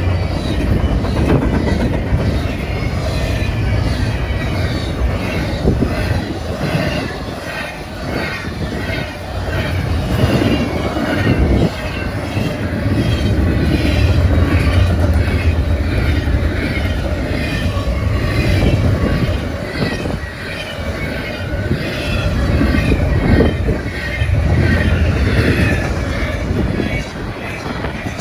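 Freight train cars of a CSX intermodal train passing close at about 50 mph: a continuous heavy rumble of wheels on rail with fast, repeated clicking from the wheels.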